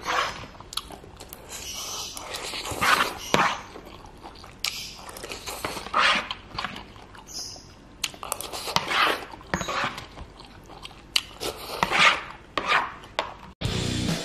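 Close-miked eating of Indomie noodles and tekwan in broth: irregular slurps and chewing, with a metal spoon scraping and clinking on the plate. Music cuts in abruptly near the end.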